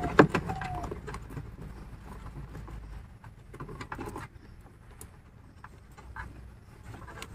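Hands handling and bundling a thin dash cam cable: light scattered clicks and rustles, with one sharp click just after the start, over a low steady rumble.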